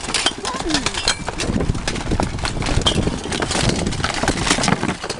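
Clatter of a full-contact bohurt melee: steel weapons striking plate armour, helmets and shields in many blows close together, with shouts mixed in.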